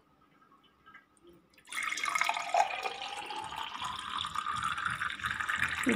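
Blended raw mango juice poured in a steady stream into a tall drinking glass, starting about two seconds in. The pitch of the filling glass rises as it fills.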